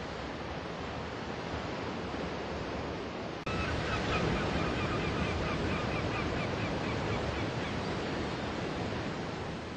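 Steady wash of sea surf on a beach. About three and a half seconds in, the sound cuts to a louder take of the surf, and a bird calls in short, rapidly repeated chirps, about four a second, for several seconds.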